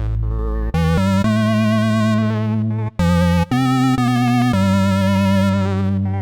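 UVI WaveRunner 360 playing sustained synthesizer chords with vibrato. It is a wavetable sample library taken from a rare vintage wavetable machine, with a raw, lo-fi tone. The chords change several times, with a brief break about three seconds in.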